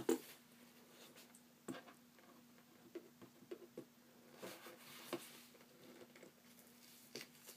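A small letter opener poking and scraping at the edge of a cardboard mailer box, giving scattered small clicks and scratches, the sharpest right at the start. A faint steady hum runs underneath.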